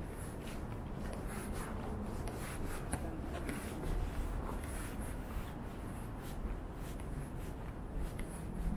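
Footsteps on a pavement at a steady walking pace, about two a second, over a steady low hum of city street noise.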